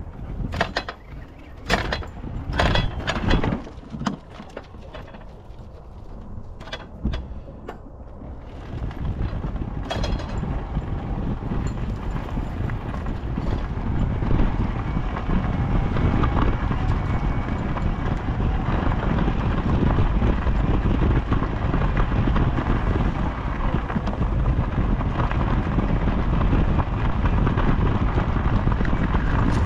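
A run of sharp knocks and clanks from the wooden field gate in the first several seconds. After about eight seconds comes a steady rumble and crunch as the Tramper all-terrain mobility scooter's tyres roll along a gravel path.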